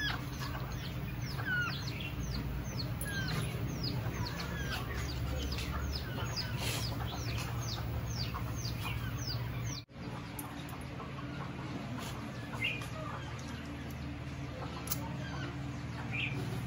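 Birds chirping: a quick run of short, high whistled notes that fall in pitch, about two a second, thinning out after about ten seconds, over a steady low hum.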